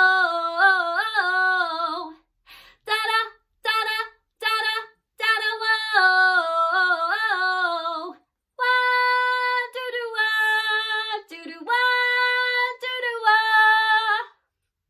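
A woman singing a wordless backing-vocal part unaccompanied. It begins with short separate notes and sliding phrases, and after about eight seconds moves to long held notes.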